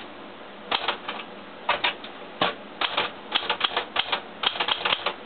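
Smith Corona Deville Deluxe portable manual typewriter being typed on: type bars striking the platen in short, irregular runs of clicks with brief pauses between them.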